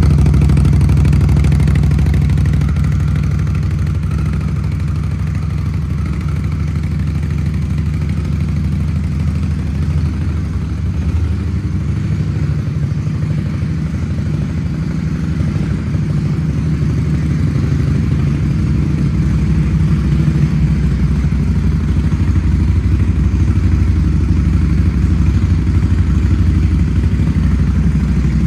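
Indian Scout Bobber's V-twin engine idling steadily through Shotgun aftermarket exhausts, a deep even rumble that eases a little in the middle and picks back up toward the end.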